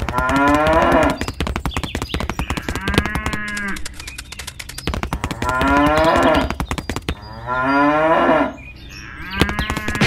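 Cow mooing several times, long calls a second or two apart, some falling in pitch, over a rapid clicking.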